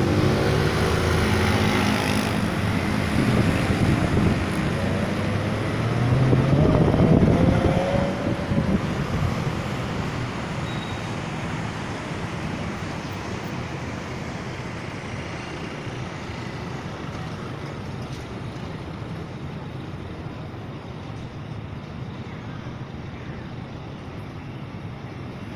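Road traffic at a city intersection. About six to eight seconds in, a vehicle's rising engine note swells as it accelerates away. Afterwards the traffic noise settles to a quieter, steady hum.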